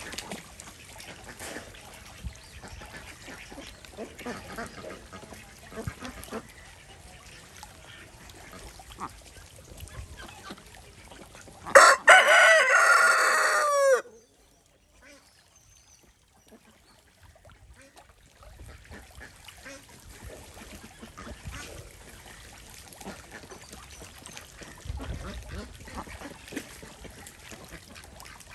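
A rooster crows once, loudly, about twelve seconds in; the call falls in pitch at the end and cuts off abruptly. Around it, domestic ducks dabble and splash in shallow pond water.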